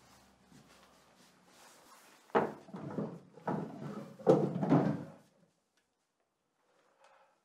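A wooden drawer being pulled open and handled, several knocks and scrapes of wood on wood over about three seconds, starting a couple of seconds in.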